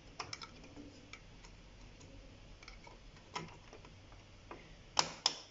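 A RAM module being handled and pressed into a motherboard DIMM slot: scattered light plastic clicks and taps, then two sharp snaps near the end as the module seats and the slot's retention latches close.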